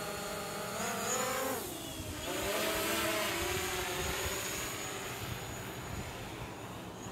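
Quadcopter drone's propellers whining in a layered hum, the pitch wavering about a second in, dipping sharply, then climbing back and holding steady as the drone manoeuvres.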